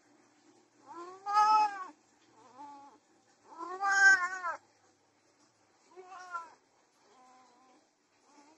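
Domestic cat yowling during mating, in drawn-out wailing calls that rise and fall in pitch. The two loudest come about a second in and about four seconds in, with weaker, shorter calls between and after.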